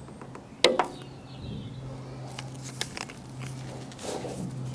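Small metal clicks and taps of a pick prying the primer bulb and its retaining ring out of a lawnmower carburetor, with one sharp click about half a second in and lighter clicks later as small parts and tools are handled. A low steady hum runs underneath.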